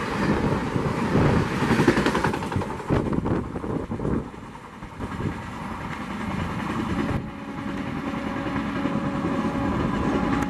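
Express train coaches passing at high speed close by: a loud rush of wheels and air with irregular clatter from the wheels on the rails. About four seconds in this drops away, and a quieter, steady rumble of a train approaching from a distance follows, with a faint hum coming in near the middle.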